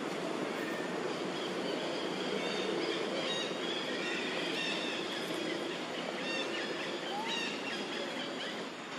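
Steady outdoor background noise with short, high bird chirps scattered through the middle and near the end.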